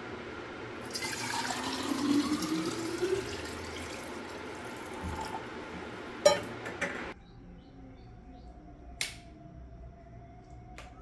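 Water poured from a steel saucepan into an open stainless-steel vacuum flask, the pitch of the filling rising as the flask fills, followed by a sharp metallic clank. The sound cuts off suddenly about seven seconds in.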